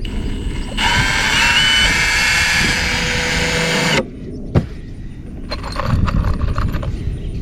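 Cordless drill driving an exterior deck screw through the joint of two culvert pipes: the motor runs for about three seconds, its pitch stepping up partway, then stops suddenly. Fainter handling noise follows.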